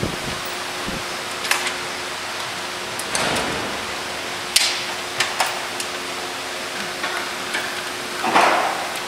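Scattered sharp metal clicks and knocks of parts and tools being handled on a motorcycle's rear wheel, axle and chain, with a longer rattle near the end, over a steady hiss.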